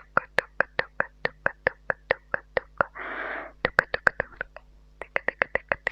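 ASMR mouth sounds made close to a mini microphone: quick tongue clicks ("tk tk"), about four or five a second, broken about three seconds in by a short breathy whispered hiss, then a faster run of clicks near the end.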